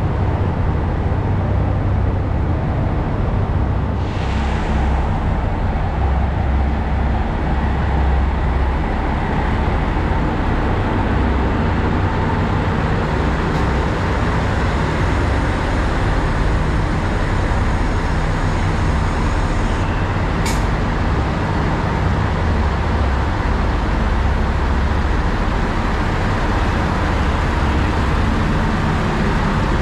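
JR Shikoku 2700 series diesel multiple unit standing with its diesel engines idling, a steady low rumble with a faint hum. There is a short hiss of air about four seconds in and one sharp click about twenty seconds in.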